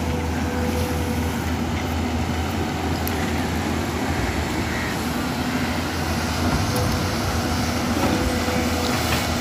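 Diesel engine of a Hyundai long-reach excavator working from a floating pontoon, running with a steady low drone and a faint higher tone that comes and goes.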